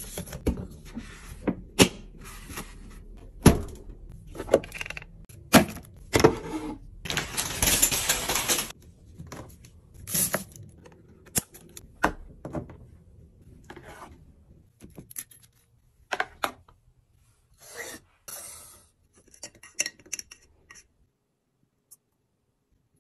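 Close-up restocking sounds as household items are handled and put in place: a run of clicks, taps and light knocks, with a stretch of steady noise lasting about two seconds around seven seconds in. The sounds thin out and stop shortly before the end.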